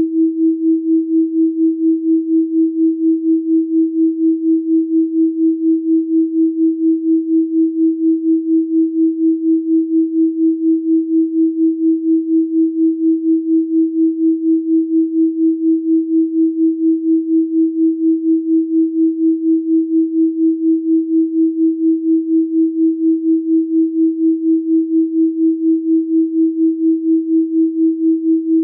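A steady electronically generated 324 Hz pure sine tone, its loudness pulsing rapidly and evenly.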